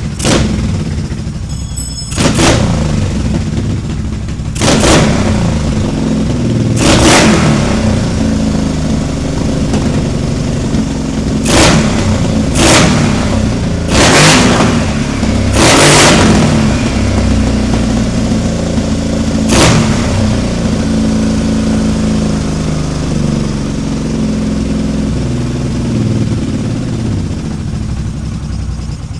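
Car engine idling with a steady low rumble, blipped to short revs about eight times. The owner thinks it might be misfiring a little.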